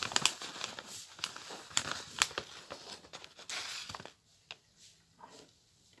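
Paper and plastic packaging crinkled and rustled by hands right at the microphone, with several sharp crackles. It dies down to faint handling sounds after about four seconds.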